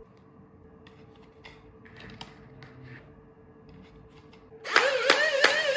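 A few faint clicks, then about two-thirds of the way in an electric gel blaster fires a full-auto burst: a wavering motor whine with sharp shots at about four a second.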